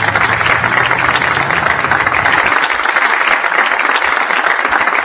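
Studio audience applauding. A steady low engine hum runs under the first half and fades out.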